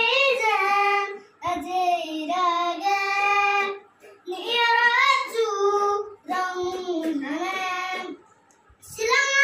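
A young boy singing a song in phrases of held, wavering notes with short breaths between them, pausing briefly near the end before starting again.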